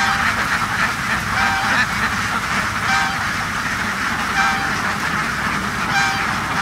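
A huge flock of domestic laying ducks quacking all at once in a dense, unbroken din. One clearer call stands out above the mass about every second and a half.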